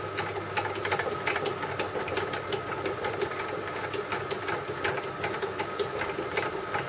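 Steady machine hum from an old drill press, with irregular light metal clicks and ticks as a screw in its head is turned back in with a hand bar.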